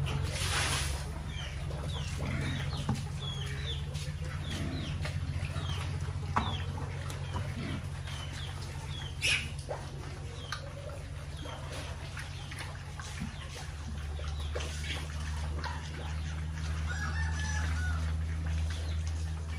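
Chickens clucking and chicks peeping around a pig feeder, over a steady low hum. Pigs chew at the trough. In the first second comes a rush of feed poured from a bucket, and about nine seconds in there is a single sharp knock.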